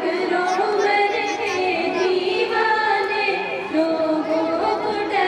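Girls' voices singing a tarana, an Urdu Islamic devotional song, together and unaccompanied, in long held and gliding notes.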